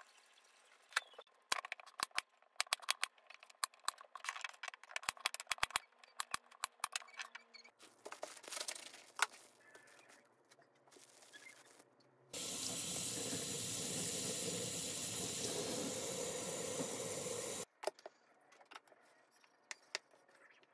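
A handheld vegetable peeler scraping a potato in quick strokes, then a plastic tofu package crinkling as it is opened. A kitchen tap then runs steadily for about five seconds and cuts off, the loudest sound. Near the end a knife taps through tofu onto a wooden cutting board.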